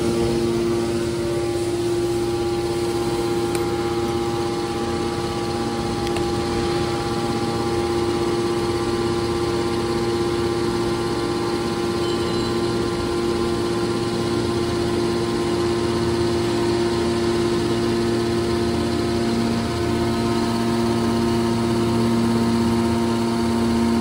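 Hydraulic metal baler's power unit, an electric motor driving its hydraulic pumps, running with a steady hum of several even tones.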